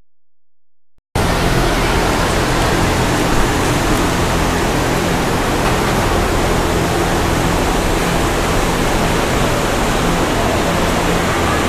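Near silence for about a second, then a loud, steady rushing noise with a low hum beneath it: the background noise of a dairy cattle barn.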